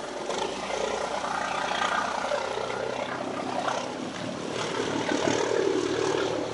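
A boat engine running steadily under a continuous rush of wind and water noise.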